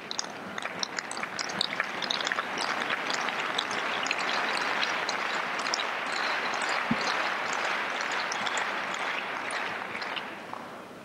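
Crowd applauding in a tennis stadium: dense clapping that swells over the first couple of seconds, holds, and dies away near the end. A single sharp thud, like the tennis ball bouncing on the court, sounds about seven seconds in.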